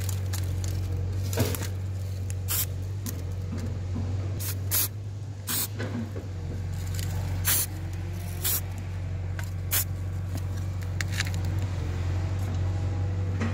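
Aerosol spray-paint can hissing in about a dozen short bursts, over a steady low hum.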